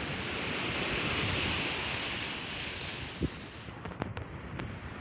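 Sea wave washing up the beach, a rush of surf that swells to its peak about a second in and dies away after about three seconds. A few sharp clicks follow near the end.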